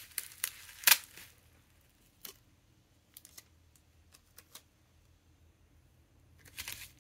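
Handling noises from a bubble-wrapped pack of glass ink sample vials being set down on a table: a few sharp clicks and crinkles, the loudest about a second in, then scattered faint ticks and a quiet stretch.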